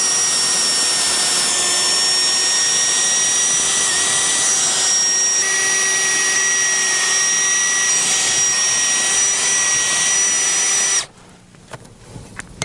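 Cordless drill with a quarter-inch bit running at steady high speed, boring a pilot hole into a fence post: one long, even whine that cuts off suddenly about eleven seconds in.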